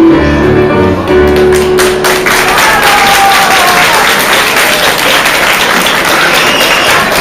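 Dance music ending about two seconds in, followed by an audience applauding steadily.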